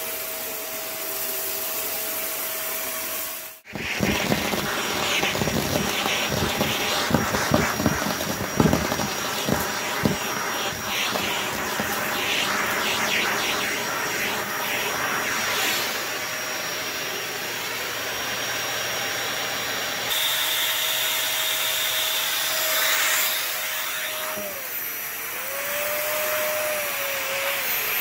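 Stick vacuum cleaner running with a steady motor whine; after a short break it crackles and crunches for several seconds as debris is sucked up off the rug, then the motor settles to a steady run whose pitch wavers up and down as the head is pushed back and forth.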